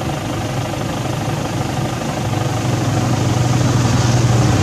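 An engine running steadily with a low hum, growing louder over the last couple of seconds as if coming closer.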